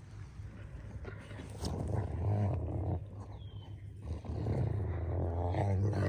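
A dog growling in play, in two long low growls, the second starting a little after the first ends.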